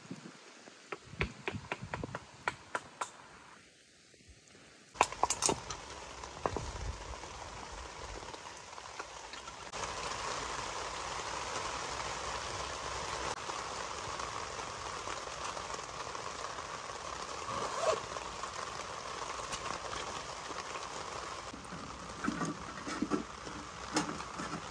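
Sharp knocks and cracks of a knife splitting wood into kindling during the first six seconds, then steady rain falling in an even hiss, with a few light knocks near the end.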